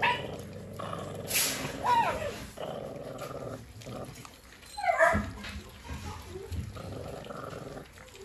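Puppies growling as they fight over and chew raw meat, with short yelps at about two seconds in and again at about five seconds in.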